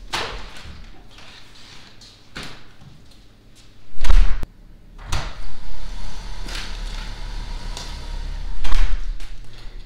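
A series of knocks and thumps, the loudest a heavy slam about four seconds in and another near the end, over a steady low rumble.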